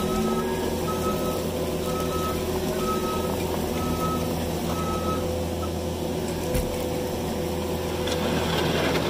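New Holland skid steer's engine running while its backup alarm beeps about once a second as it reverses; the beeping stops about six seconds in and the engine runs on.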